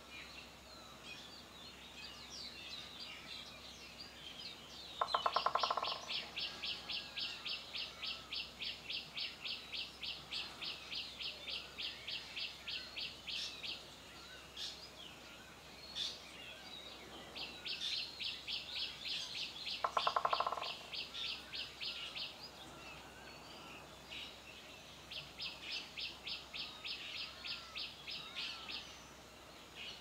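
Birds chirping, with long runs of rapidly repeated high calls at about four a second, three times over. Twice a run opens with a short, louder, lower call.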